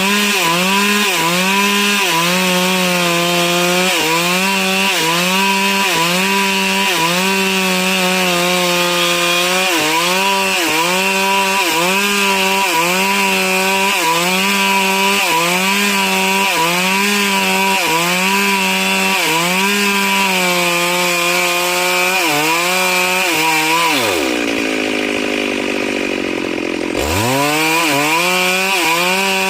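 Stihl MS 382 two-stroke chainsaw running at high revs, its engine note dipping and recovering in a steady rhythm about every 0.7 seconds. Near the end the throttle is let off and the note drops sharply, then it revs back up about three seconds later.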